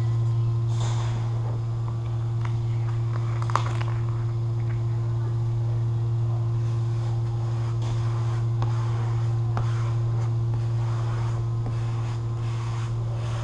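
A steady low hum, with faint scraping, clicking and rustling of vinyl wrap film being handled and pressed down by a squeegee.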